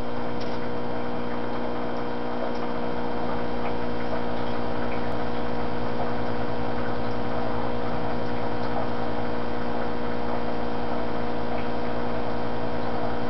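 Steady electrical hum made of several constant tones, typical of a desktop computer and its CRT monitor running, with a few faint ticks scattered through it.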